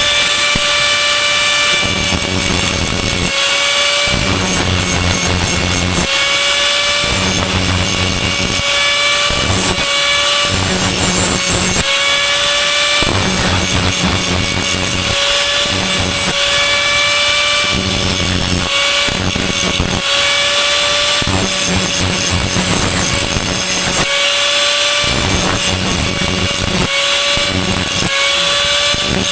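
Electric angle grinder running continuously on steel, its high whine dipping and recovering every couple of seconds as it is pressed into the metal and eased off.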